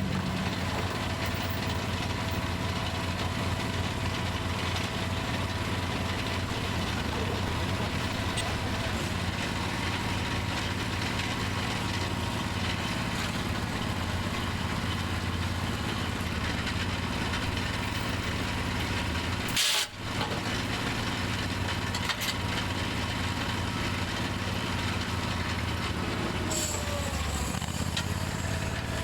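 Ford 8N tractor's four-cylinder flathead engine running steadily. About two-thirds of the way through there is one brief sharp click with a momentary dropout.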